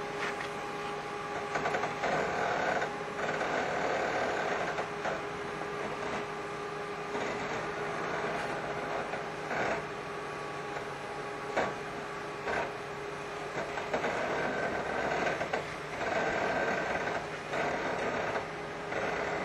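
Land Rover Discovery's engine running at low revs as it crawls slowly over a rock ledge, a steady hum with a few short knocks.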